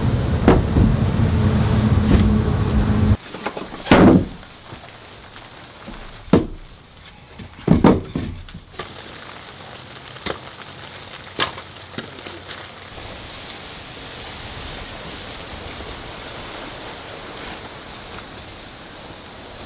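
Rain falling: a loud rush for the first three seconds that cuts off abruptly, then a steady lighter hiss. Over it come about six sharp knocks of split firewood logs being dropped and stacked.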